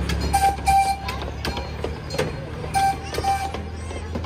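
Miniature amusement-park passenger train passing, its motor giving a steady low hum while the wheels click on the track. Short, steady high-pitched tones sound twice, about half a second in and again near three seconds.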